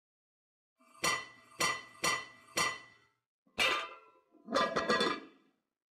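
Intro logo sting: sharp, ringing metallic hits, four about half a second apart, then another after a short gap and a quick flurry of hits near the end.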